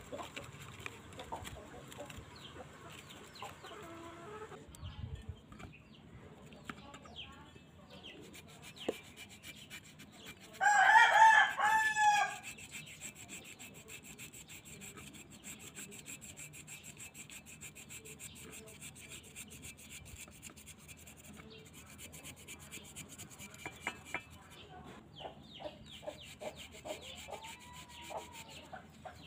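A wooden stick scraping and scrubbing a gritty white paste over an old metal motorcycle pedal bracket, a faint rubbing throughout. About eleven seconds in, a rooster crows once, the loudest sound, for about a second and a half.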